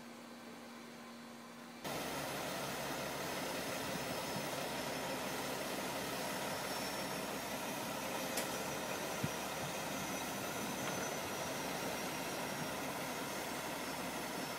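Semi-truck idling: a steady low engine hum under a wash of noise, coming in abruptly about two seconds in after a quieter hiss, with two faint clicks about halfway through.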